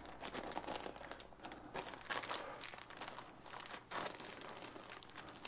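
Zip-top plastic bag crinkling in the hands as the air is pressed out of it, with a few sharper crackles about two seconds in and again near four seconds.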